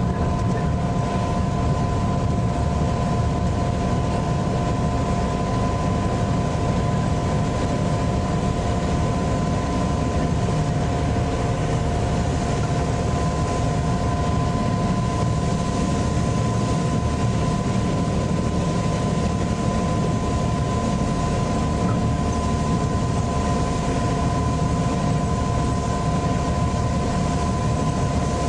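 The EMD 567 diesel engine of an NZR DA class locomotive running steadily under way, heard from inside the cab, with a steady whine over the engine sound.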